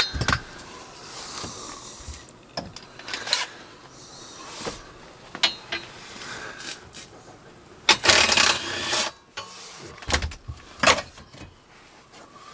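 Scattered metallic clinks and knocks of tools and loose metal parts as the tubular steel knee brace under a pickup's steering column is unbolted and pulled out. One louder burst of noise lasting about a second comes about eight seconds in.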